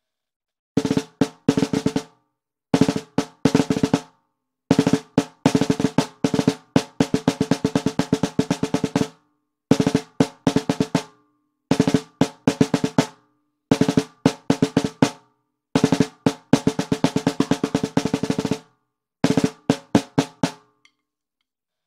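Baldassare M1455LR 14 x 5.5-inch stainless steel marching snare drum played with wooden sticks: a series of short rudiment phrases and rolls, each a quick run of strokes with a ringing pitch under it, separated by brief pauses. The playing stops about a second before the end.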